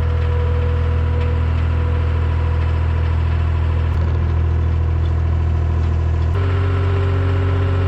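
An engine idling steadily, with an abrupt change in its tone about six seconds in.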